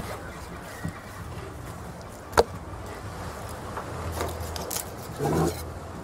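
Fish being cleaned with a knife: sharp clicks and scrapes of the blade against the fish and the slab, one loud click about two and a half seconds in and a short louder burst near the end, over a steady low hum of market background.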